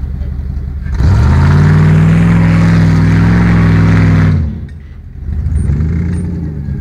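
Off-road competition vehicle's engine running, then revving hard and loud about a second in, held for about three seconds and cut off abruptly. A second, shorter rise and fall of revs follows near the end.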